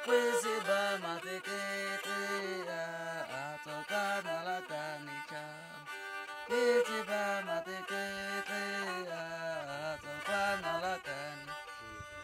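Homemade bowed stick fiddle played with a curved bow: a wavering melody with sliding notes over a low sustained tone, the notes bending up and down throughout.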